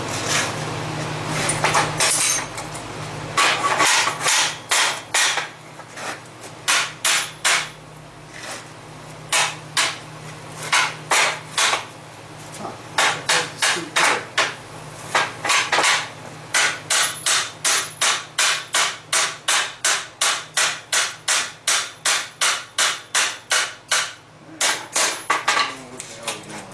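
Hand hammer blows on red-hot square steel bar, bending it around a scroll jig on a steel workbench. The blows come in runs, with a long steady stretch of about two to three blows a second.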